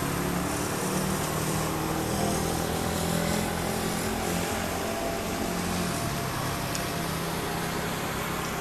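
A steady engine hum with a low wavering drone, like a motor vehicle running or passing traffic.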